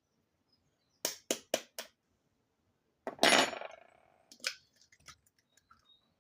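Eggs being tapped against a bowl and cracked open: four quick sharp taps about a second in, then a louder crack and clatter about three seconds in that dies away over half a second, followed by a few small clicks.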